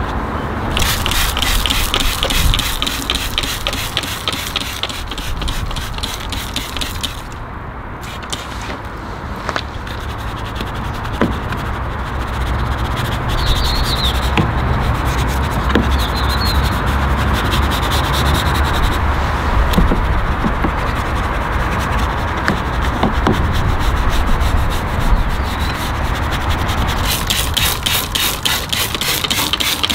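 Steady rubbing against a car's surface during detailing, with stretches of fast, even ticking near the start and again near the end.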